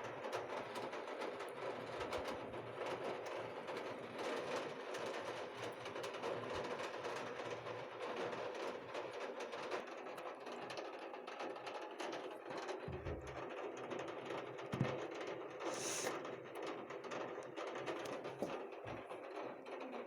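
Steady rain, a dense, even pattering of many drops striking a surface.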